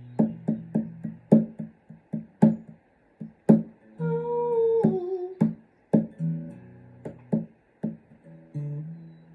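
Guitar playing alone: plucked notes and chords struck in an uneven rhythm, with a few notes held ringing between the strikes.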